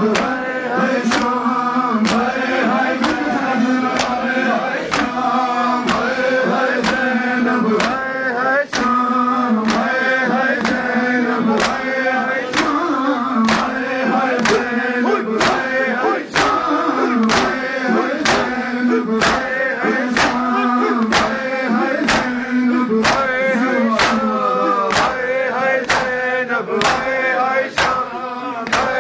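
Men's voices chanting a Shia devotional recitation together, over the rhythmic slaps of matam: bare-chested mourners striking their chests with their hands in unison, about two strikes a second.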